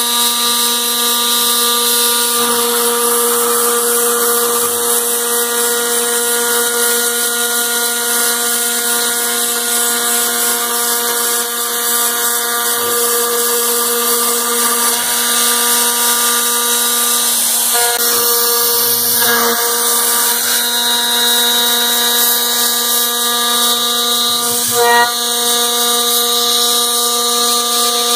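CAMaster CR-304 CNC router spindle milling aluminum: a loud, steady whine with a stack of constant tones over a hiss of cutting, and one brief clack near the end.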